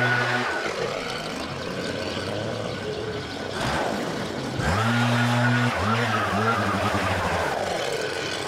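Gas leaf blower revving on and off its throttle. It drops away about half a second in, spins back up with a rising whine about four and a half seconds in, takes a few quick throttle blips, and eases off again near the end.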